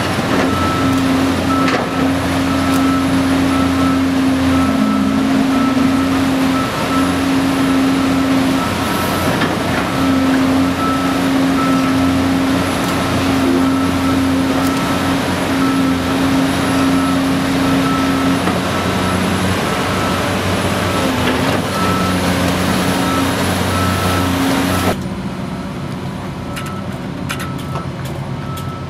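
Cat 330D L excavator's diesel engine working hard as the machine tracks through deep mud, with its travel alarm beeping over and over at an even pace. About four seconds before the end the engine noise drops suddenly while the beeping goes on.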